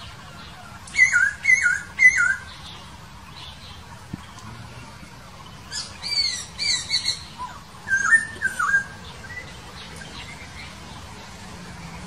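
Laughingthrush (poksay) calling in the wild. About a second in it gives a quick set of three falling notes, then a run of higher, squeaky falling notes in the middle, then two lower notes near the end.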